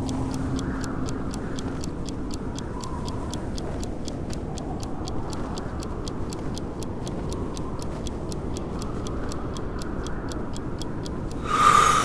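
Steady snowstorm wind ambience under a rapid, even ticking, about four ticks a second. The ticking stops near the end, and a sudden louder sound swells in.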